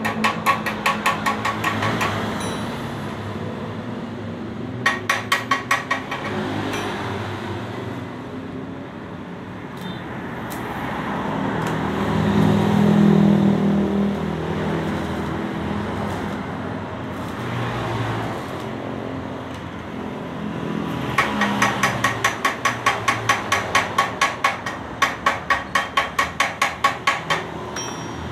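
A small hammer tapping on the steel muffler of a leaking motorcycle exhaust under repair, in quick, even taps about five a second. The taps come in a short run at the start, another about five seconds in, then a nearly unbroken run through the last seven seconds. Between the runs there is a steady low rumble, swelling briefly about twelve seconds in.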